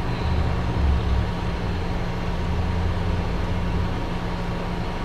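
Car running, heard from inside the cabin: a steady low rumble with a constant hum.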